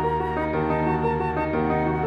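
Background music: slow, held notes and chords, with a new note every second or so.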